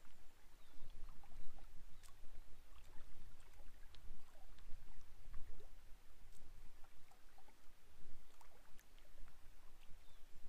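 Quiet lakeshore ambience: gentle water lapping at a rocky bank, heard as scattered small ticks and splashes over a low steady rumble.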